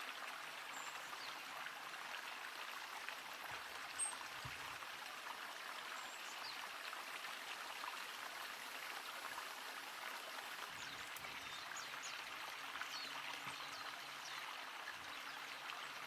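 Steady rushing of a flowing stream, with a few faint, high bird chirps now and then and a brief tick about four seconds in.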